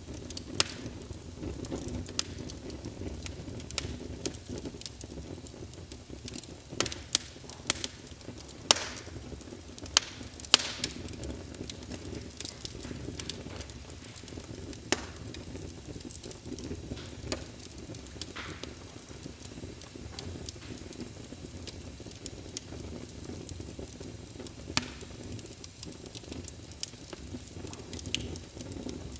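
Wood fire burning in a fireplace: a steady low rumble and hiss of flames with irregular sharp crackles and pops, a cluster of louder pops around the middle.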